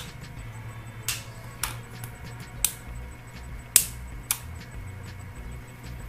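A green plastic spudger prying along the edge of a Microsoft Surface RT tablet: five sharp clicks, the loudest about halfway through, over a steady low hum.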